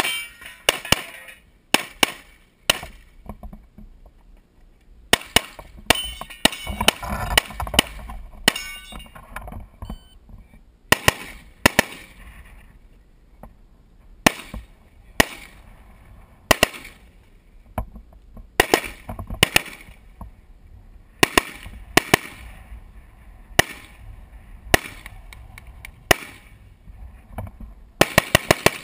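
Gunfire on a three-gun competition stage: a pistol and then a semi-automatic AR-style rifle firing single shots and fast pairs, with short pauses between strings, and a very rapid string of shots near the end.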